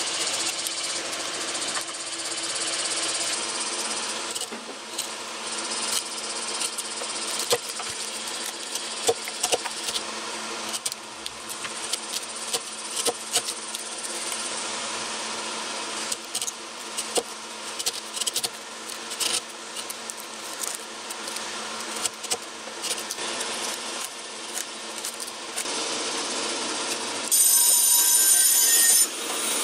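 Japanese hand chisel paring softwood by hand, a string of short scraping, slicing cuts as shavings break away, over a steady background hum. Near the end the sound changes abruptly to a louder, steadier hiss.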